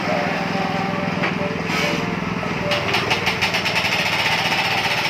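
Small engine of a winch (hoist) machine running steadily, with a fast, even rattling that sets in about halfway through.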